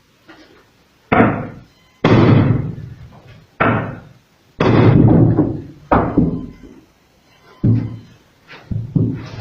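Sledgehammer striking the back of a wood-splitting axe driven into a log: about eight heavy blows at uneven intervals of roughly a second, each one loud and sharp and trailing off over half a second or so.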